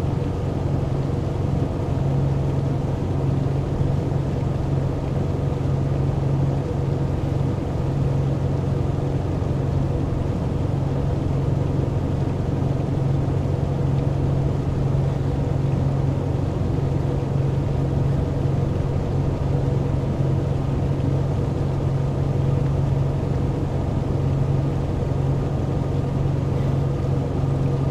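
Motor boat's engine running steadily at constant speed, a low even hum with no change in pitch or level.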